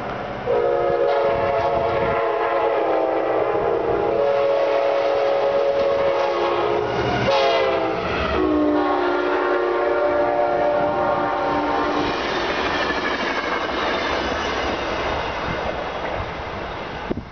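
Sounder commuter train sounding its horn in long blasts as it approaches and passes, the horn's pitch dropping as it goes by. The horn stops about twelve seconds in, and the passing bilevel coaches' wheels are heard rolling over the rails.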